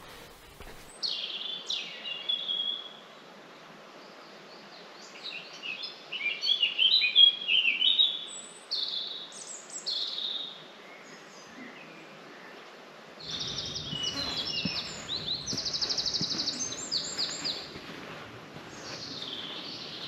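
Songbirds singing: a run of separate high, clear phrases, several sweeping downward, then fast high trills. A low rushing noise comes in under the song about two-thirds of the way through.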